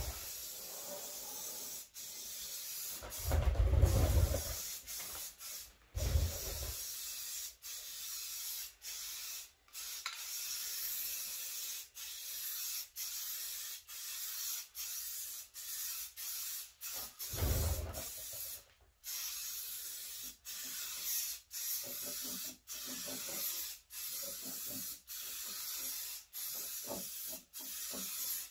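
An aerosol spray paint can hissing in a run of short passes, each broken by a brief pause. A few dull low thumps come in between, the loudest about four seconds in.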